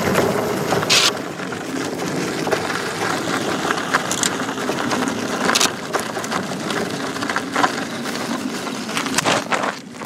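Electric unicycle tyre rolling over a gravelly dirt trail: a steady crunching and crackling with scattered sharp clicks from stones, dropping off just before the end as it slows to a stop.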